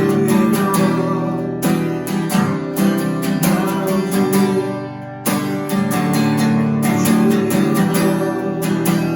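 Acoustic guitar strumming chords as an instrumental passage of a worship song, with no singing; the strumming thins out about five seconds in, then resumes with a strong strum.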